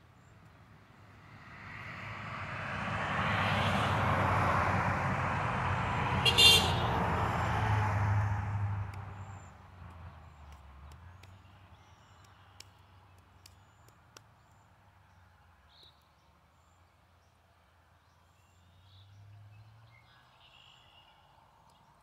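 A road vehicle passing, its engine and tyre noise rising, holding for several seconds, then fading away. A brief high-pitched toot sounds about six seconds in.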